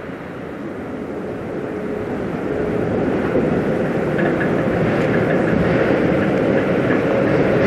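Steady low rumble of a passing Great Lakes bulk freighter, with a faint steady hum in it, growing gradually louder.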